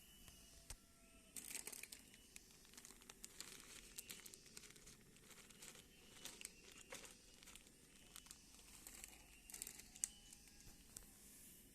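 A cat eating a snack, making faint, irregular crinkling and clicking with clusters of quick crackly ticks.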